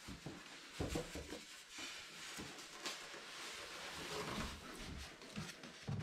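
Handling noise as a large flat-screen TV is lifted out of its shipping box by its styrofoam end pieces: styrofoam and cardboard rubbing and scraping, with a few dull knocks, the first about a second in and more near the end.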